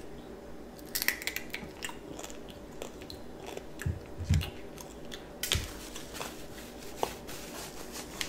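Candied strawberries being bitten and chewed, their sugar-glazed shells crunching in short, scattered crackles and clicks. A few dull knocks come about four and five and a half seconds in.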